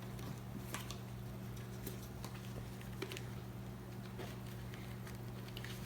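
Scattered light clicks and rustles of hands fitting plastic intercom parts into a motorcycle helmet, over a steady low hum.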